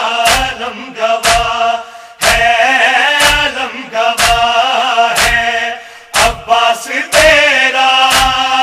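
Male voice chanting a nauha, an Urdu Shia lament, with a pause between lines about two seconds in and again about six seconds in. The chant is kept in time by sharp, steady beats about once a second, typical of the rhythmic chest-beating (matam) that accompanies nauha.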